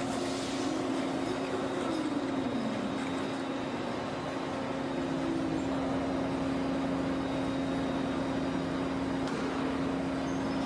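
A machine running steadily: a constant hum over a hiss, with a brief falling pitch about two to three seconds in.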